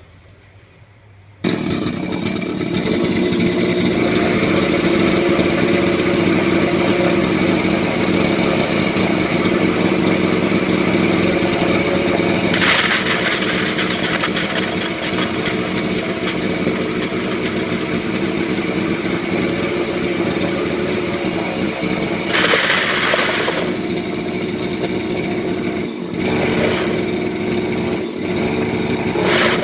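Small grass-cutter engine driving a homemade goat-manure grinder, coming in abruptly about a second and a half in and then running steadily at speed. Twice it is joined by a brief louder rush of noise.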